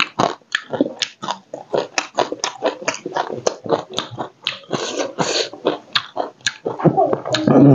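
Close, wet chewing and lip-smacking on a mouthful of crab curry, picked up on a clip-on microphone: a quick, uneven run of short smacks and clicks.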